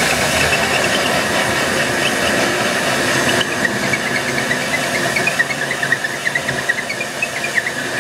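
Cordless drill running a hole saw as it cuts through a wooden cabinet panel, a steady grinding whir. From about halfway through, a rapid run of short squeaks rides on top as the saw teeth bind in the cut.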